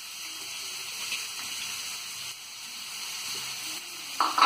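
Chopped onions sizzling steadily in hot oil in a heavy pan, just after being added. A brief, louder clatter comes near the end.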